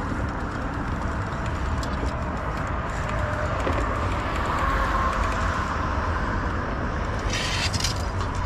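Steady traffic rumble from the road bridge, mixed with wind on the microphone, while a spinning reel is cranked to bring in a fish. A brief hiss rises and falls away near the end.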